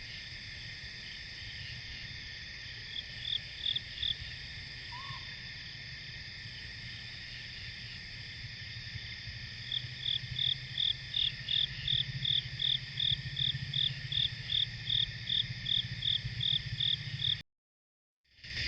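Late-summer night chorus of crickets and other insects, trilling steadily, with a sharper chirping call repeating about three times a second through the second half. The sound cuts off suddenly near the end.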